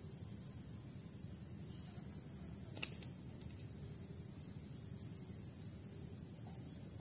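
Steady high-pitched insect chorus droning without a break over a low background rumble, with a single sharp click about three seconds in.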